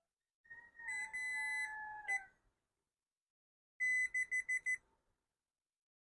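Multimeter continuity beeper cutting in and out like Morse code as a wire-piercing probe makes unsteady contact: one beep lasting about a second and a half, then a quick run of about five short beeps.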